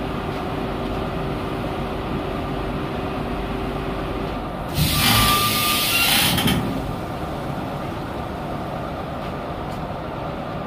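Industrial crate-washing machine running with a steady hum; a steady tone in it stops about four seconds in. Then comes a loud hiss of about two seconds as the machine's hood lifts open on its pneumatic cylinder, exposing the washed crate.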